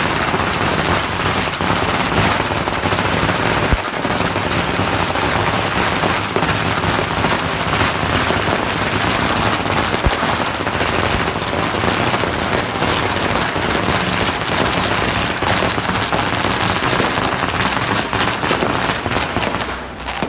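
Strings of firecrackers going off in a dense, continuous rapid crackle, with a louder bang about 4 seconds in and another about 10 seconds in.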